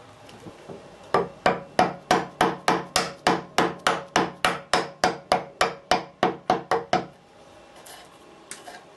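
A wood chisel struck in quick, even blows, about three a second and some twenty in all, chopping a notch into a cherry wood staff. The blows start about a second in and stop a couple of seconds before the end.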